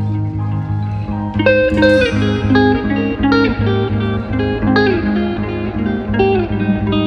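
Background music: a plucked guitar melody with sliding notes over a steady repeating bass line, the melody coming in about a second in.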